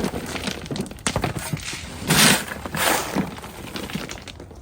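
Hard stones clattering and scraping as they are handled and set down, in a few separate bursts, the loudest about two seconds in.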